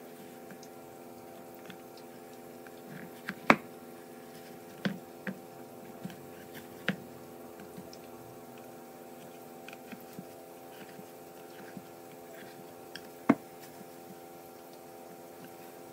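A steady electrical hum runs under a scattered series of sharp clicks and cracks. The two loudest come about three and a half seconds in and near the end, with a few smaller ones in between.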